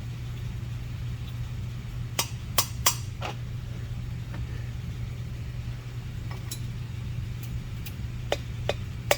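Short metallic clicks and clinks, a cluster of four and then a few single ones, as lubed steel valves are handled and slid into the guides of a cylinder head, over a steady low hum.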